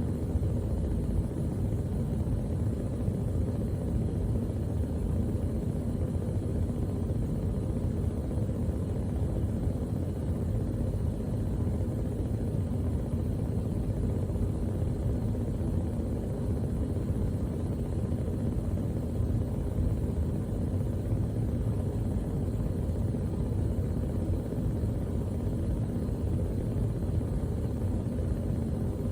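Gas stove burner flame burning steadily, a low, even rush with no clicks.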